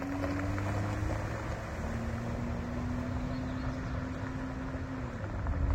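Vehicle engine running steadily under way, with a low rumble and road noise; the engine drone dips slightly in pitch about a second and a half in and changes again about five seconds in.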